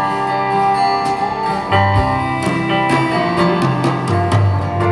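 Live band playing an instrumental passage with no singing: acoustic guitar picking over a moving bass line, with a note gliding in pitch about a second in.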